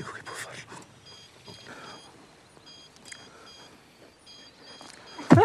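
A portable ventilator's alarm beeping over and over in short, high tones. Near the end, a person lets out one loud cry that falls in pitch.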